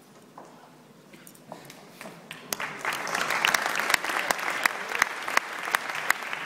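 Audience applause: a few scattered claps about a second and a half in, swelling into full applause by about halfway, with one nearby person's sharp claps standing out.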